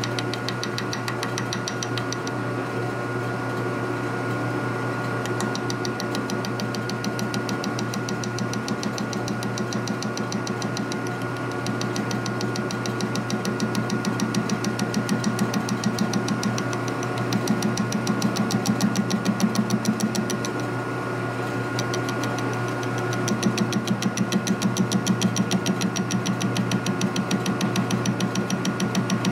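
Metal lathe running while a carbide insert turns down a fully hardened steel R-8 holder: a steady machine hum and whine under a fast, even rhythmic knocking from the cut, which grows louder for a few seconds at a time partway through.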